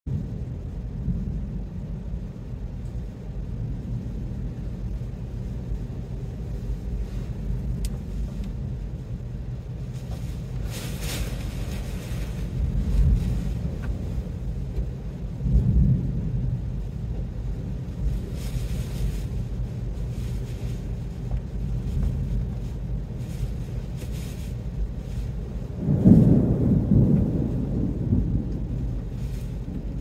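Severe thunderstorm wind buffeting the microphone as a steady low rumble, with stronger gusts about 13, 15 and 26 seconds in, and a hiss of wind-driven rain swelling now and then.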